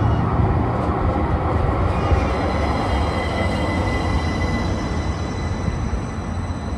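DC Streetcar tram pulling in alongside the platform: a steady low rumble of the car on its rails, with a faint high whine joining in about two seconds in.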